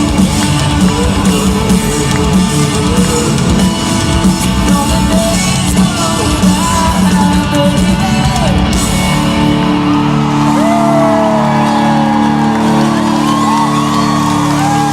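Live country-rock band playing loudly with drums and guitars; about nine seconds in the drums fall away to a held chord while voices sing and whoop over it.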